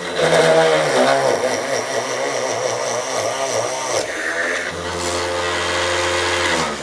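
775 DC motor of a scratch-built mini drill press drilling a hole in a wooden batten. The motor's whine drops and wavers in pitch as the bit bores in under load. After about four and a half seconds it goes back to a steady free-running whine, then cuts off at the very end as it is switched off.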